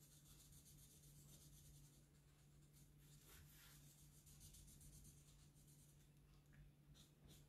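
Near silence: faint scratching of a black marker colouring in on paper, over a low steady hum.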